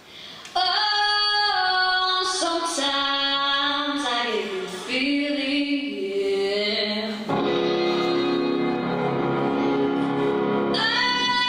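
A woman singing a solo, coming in suddenly about half a second in and holding long notes that change pitch every second or two.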